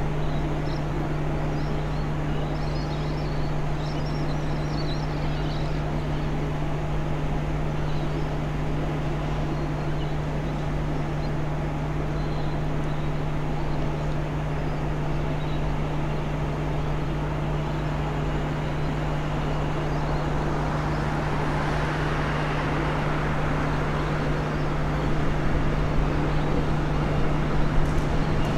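X'trapolis 100 electric train approaching on curved track, its wheel and rail noise building over the last several seconds and loudest near the end as it reaches the platform. A steady low hum runs underneath, with a few high chirps about three to six seconds in.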